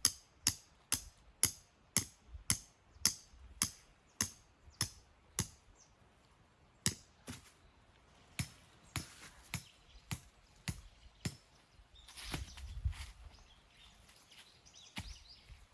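A series of sharp taps or knocks, about two a second for the first five seconds, then slower and irregular, with a brief low rumble near the end.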